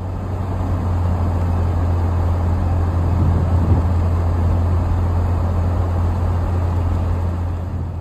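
Car driving, heard from inside the cabin: a steady low rumble of engine and tyre noise on the road.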